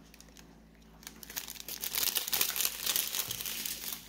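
Crinkling of a small plastic bag of resin diamond-painting drills being handled, starting about a second and a half in and lasting until near the end.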